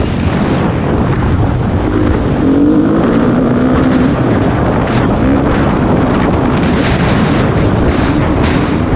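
Motocross bike engine at racing speed, its pitch rising and falling repeatedly as the rider works the throttle and gears, with wind buffeting the helmet-mounted microphone.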